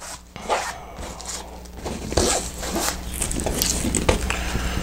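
Scratchy rustling and scraping as small paper backing strips from double-sided tape are picked up off a black fabric panel, with a couple of light knocks about two and four seconds in.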